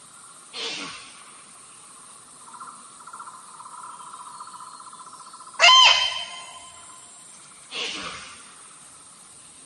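Female rusa deer calls played as a hunting lure to draw in stags: three calls a few seconds apart, the middle one loud, high and falling in pitch, the other two breathier.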